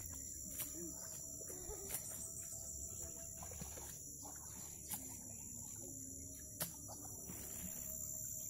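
Outdoor ambience: a steady high-pitched insect drone with faint bird calls, broken by a few sharp clicks, the loudest about two-thirds of the way in.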